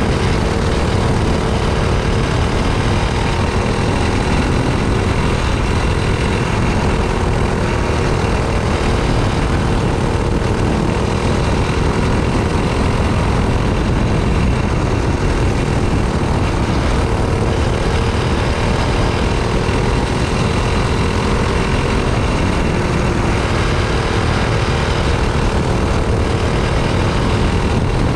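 Racing kart's small engine running hard on track, its pitch rising and falling a little as the kart goes through the corners, over a steady rush of wind and road noise.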